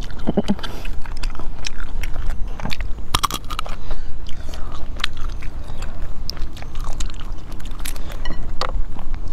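Close-miked eating sounds: biting into and chewing spicy braised meat pieces, with many sharp wet clicks and smacks, thickest about three seconds in.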